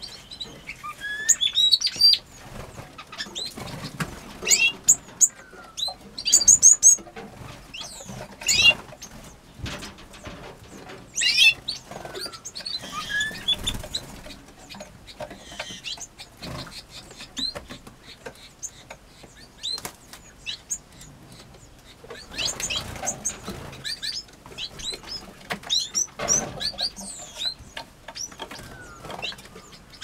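Aviary finches and canaries flapping and fluttering their wings between perches, with short high chirps and calls scattered throughout, some in quick little runs.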